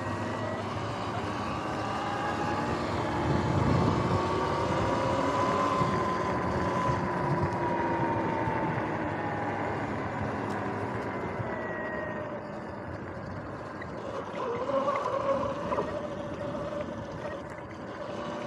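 Sur-Ron X electric dirt bike's motor whining as it is ridden, its pitch rising and falling with speed, over a steady rush of noise. The whine climbs to a peak about six seconds in, falls away, and rises again near the end.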